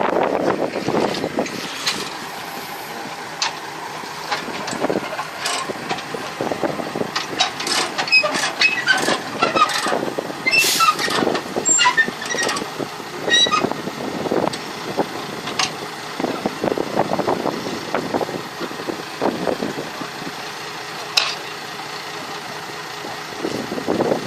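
Irregular knocks and clanks with a few short squeaky tones, densest in the middle stretch.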